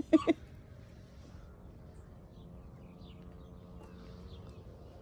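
Two short pitched calls right at the start, followed by faint, scattered chirps of small birds over a low background murmur.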